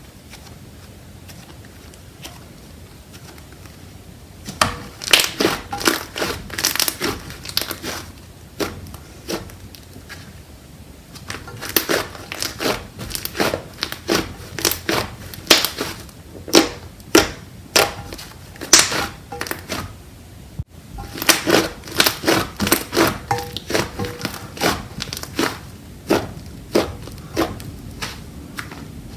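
Slime being squished and pressed, making sharp clicking and crackling pops in quick clusters that start about four seconds in.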